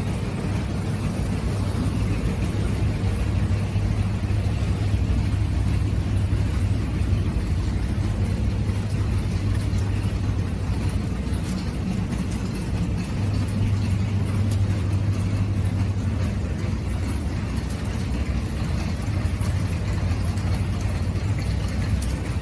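Machinery motor running steadily with a low, even hum that holds level throughout.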